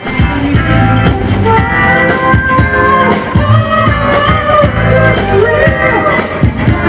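Music with singing over a steady drum beat and guitar, in a rock style.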